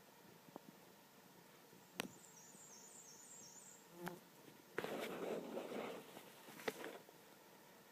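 Swarming blackflies and mosquitoes buzzing faintly and steadily. A few short high chirps come a couple of seconds in, and a brief rustle with a sharp click comes past the middle.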